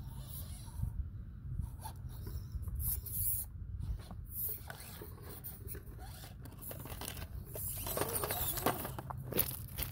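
Axial SCX24 micro crawler's small electric motor and gears whirring on and off as it climbs rocks, tires scrabbling on the stone. Near the end there is a cluster of clattering knocks as the truck tips over backwards onto the rocks.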